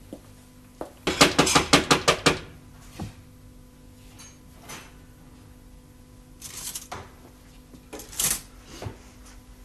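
A rapid run of about nine sharp clacks, about seven a second, as a hand strikes something hard at a shop counter. A few softer knocks and clatter follow later.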